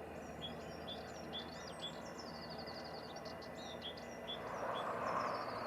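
Small birds singing outdoors: quick high chirps and a short trill, over a steady low background hum. A broad rushing noise swells near the end.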